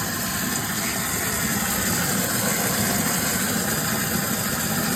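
Sump pump running steadily with a low motor hum, pumped water rushing through it, while a freshly installed primary and battery-backup sump pump setup is tested.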